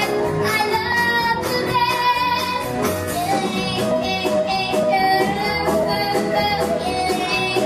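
A young girl singing a melody into a microphone, holding long notes, over live band accompaniment.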